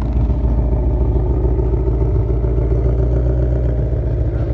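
Ford Mustang Shelby GT500's V8 running loudly at a steady, pulsing idle.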